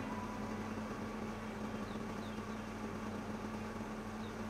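Steady low electrical hum of running workbench equipment, with a faint even hiss.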